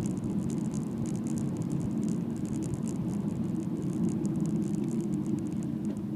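Steady in-cabin drone of a car being driven on a winding road: engine and tyre noise with a light crackle of small clicks above it.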